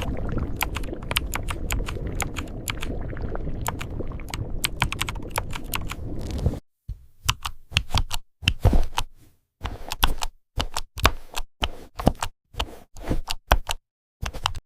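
Computer keyboard keystrokes, sound-designed to mimic different materials. For the first half, rapid key clicks sit over a dense, continuous low noise. This cuts off suddenly about six and a half seconds in, and single, separate keystrokes follow with silent gaps between them.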